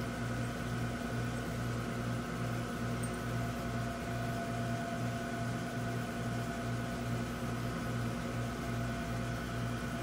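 A machine's steady hum with a low throb pulsing about twice a second.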